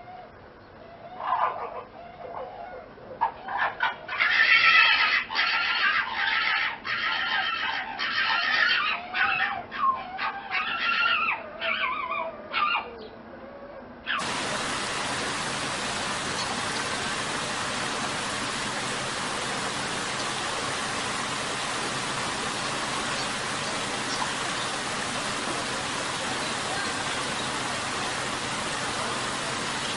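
An equine calling: a run of loud, pitched cries from about three seconds in to about thirteen seconds. At about fourteen seconds it cuts abruptly to a steady, even rushing hiss.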